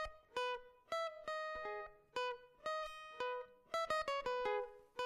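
Music: a plucked string instrument picking a slow melody of single ringing notes, about two a second.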